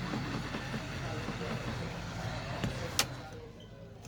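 Hot-air heat gun blowing steadily while softening the adhesive under a phone's LCD. A sharp click comes about three seconds in, after which the steady noise drops away.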